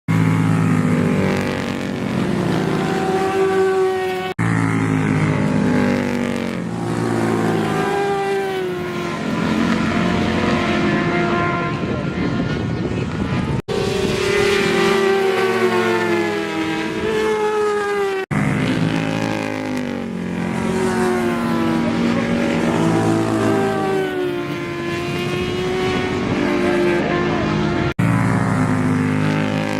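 Loud racing engines running and revving, their pitch sweeping up and down as they pass, heard in several clips joined with abrupt cuts.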